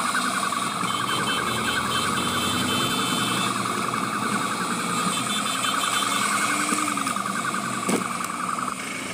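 Police siren sounding a fast, pulsing warble, with two short runs of higher beeps over it; a sharp click comes just before the siren cuts off near the end.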